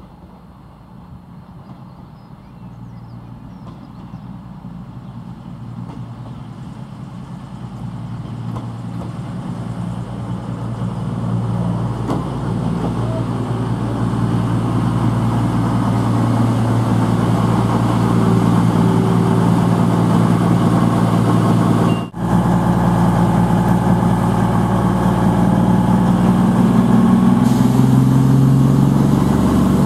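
CrossCountry Class 220 Voyager diesel multiple unit approaching and running into the platform, the steady hum of its underfloor Cummins diesel engines growing steadily louder as it nears. Near the end the engine note rises in pitch.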